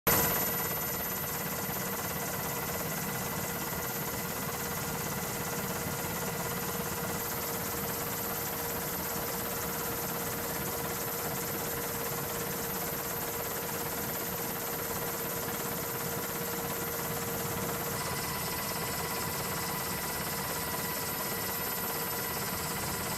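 Steady machinery hum with several constant whining tones over an even rushing noise, unchanging throughout.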